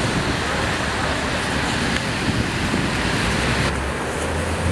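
Street traffic on wet pavement: a steady hiss of tyres through rainwater over the low rumble of bus and car engines. The hiss drops off suddenly about three and a half seconds in.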